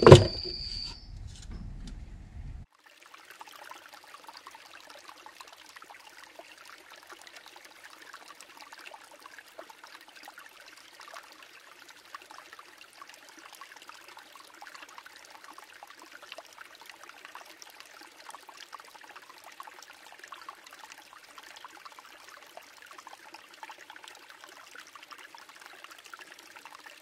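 Faint, steady trickling water, starting about three seconds in after brief handling noise of a plastic cup being set down in the vivarium.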